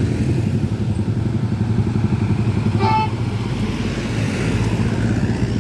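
Steady rumble of heavy road traffic, with motorcycle and other vehicle engines running past. A brief high tone, perhaps a short horn beep, comes about three seconds in.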